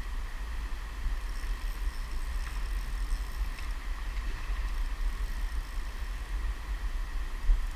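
Low, uneven rumble of handling noise on a camera's microphone, over a faint hiss of river water.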